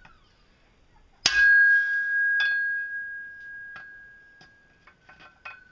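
A hammer strikes a steel pipe about a second in, and the pipe rings with a high, steady tone that slowly fades. A lighter second blow follows a second later, then a few faint taps near the end.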